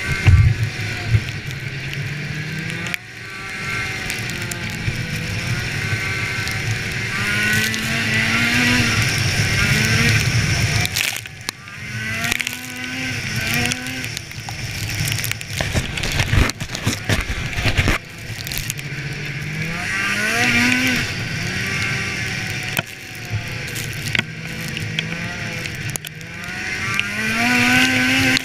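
Polaris snowmobile engine running while riding, its pitch climbing several times as the throttle is opened and dropping back in between, with wind noise over the microphone and occasional sharp knocks.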